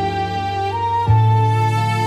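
Slow, sad background music: a held melody over sustained low notes, with the low note changing about a second in.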